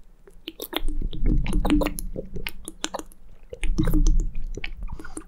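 Close-miked water ASMR mouth sounds: water moved and swallowed in the mouth, with many wet smacks and clicks. It is louder about a second in and again near four seconds.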